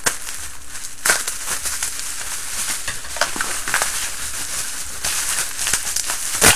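A bag rustling and crinkling as it is opened and rummaged through, with scattered small clicks and one sharp click near the end.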